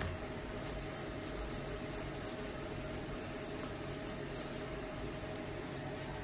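Steady room hiss with a faint, even hum underneath, like a fan or air conditioner running.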